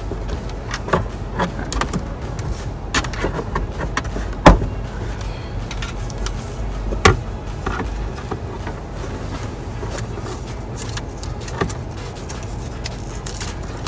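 Clicks, rattles and knocks of a plastic clip-on LED vanity mirror being worked onto a car's sun visor, with two louder knocks about four and a half and seven seconds in, over a steady low hum.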